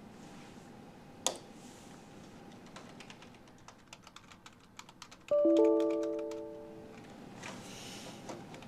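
Typing on a computer keyboard: a run of quick key clicks, with one sharper click about a second in. About five seconds in, a short chime-like chord sounds suddenly and fades over a second or so, the loudest sound here.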